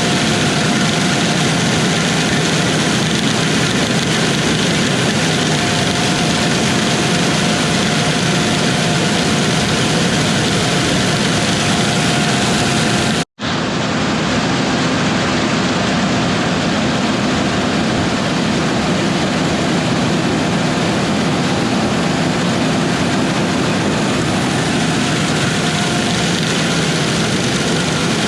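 Steady drone of large diesel harvest machinery running, with a faint steady whine over it in the first part. About 13 seconds in the sound drops out for a moment, then the machinery drone goes on with less hiss.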